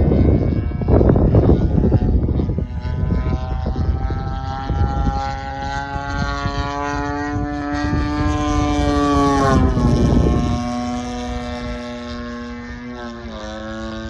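Two-stroke gas engine (GP-76cc) and propeller of a large RC aerobatic plane in flight, droning and rising slowly in pitch, then falling sharply about ten seconds in and dipping again near the end. Wind buffets the microphone over the first couple of seconds.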